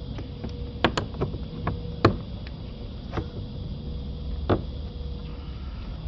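Sharp plastic clicks and snaps as the rear door panel of an Audi A6 C6 is pulled off the door and its retaining clips pop loose. There are four loud ones, two close together about a second in, one near two seconds and one past the middle, with a few fainter clicks between them.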